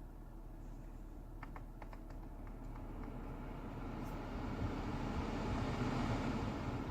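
A few light clicks, then the air conditioning blower of a Toyota Mark X (GRX130) blowing air into the cabin, the rush growing louder over the last few seconds as the fan speeds up.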